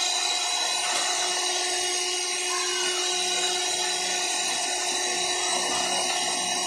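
Electric hand mixer running steadily at one speed, a constant motor whine with its beaters turning in a bowl of brownie batter.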